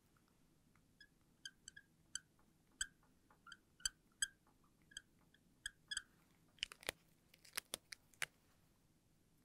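Short squeaks of a marker drawing quick strokes on a glass light board, about a dozen in the first six seconds. Then a handful of sharp plastic clicks as the markers are handled and capped.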